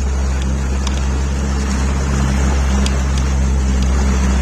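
Motorboat engine running steadily under way, a constant low hum, with the rush of water and wind around it.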